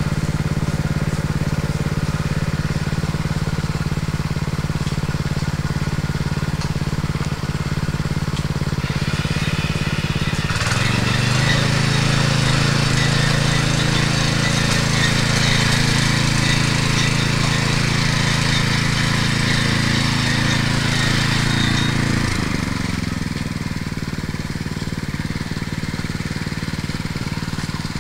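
STIHL walk-behind petrol tiller's engine running steadily at a low speed. About ten seconds in it is opened up and the rotary tines churn the ground, adding a rough scraping rattle. About twenty-two seconds in it drops back to a steady low speed.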